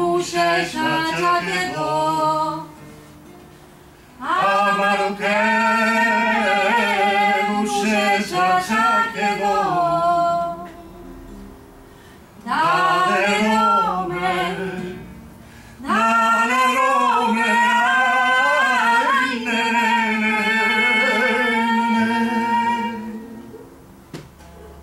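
A woman singing a Romani song in long, held phrases with a wavering pitch, broken by short pauses, over a soft acoustic guitar accompaniment.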